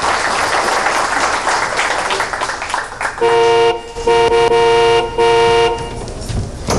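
Car horn honking three times in a row, the middle blast the longest, after a few seconds of steady rushing noise.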